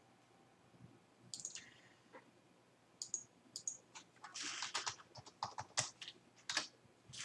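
Computer keyboard typing, faint: a few separate keystrokes, then a quick run of keys in the second half.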